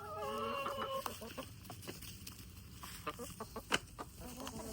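Backyard hens clucking, with one long drawn-out call in the first second, then scattered light taps and a single sharp click late on.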